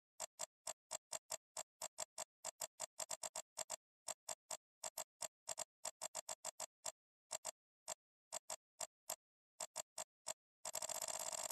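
Computer mouse clicking as the Photoshop brush is dabbed and swept: short, sharp clicks coming unevenly at about two to five a second. Near the end they run together into a rapid rattle of clicks.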